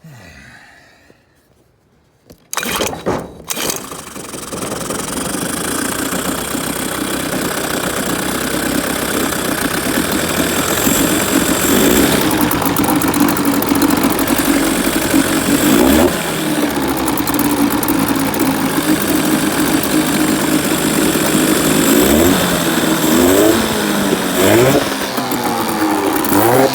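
Small outboard motor being pull-started on a test run after its stuck carburettor float bowl needle was freed: it catches within a second or so and runs steadily, getting louder. Near the end the throttle is opened and closed a few times, the engine revving up and back down.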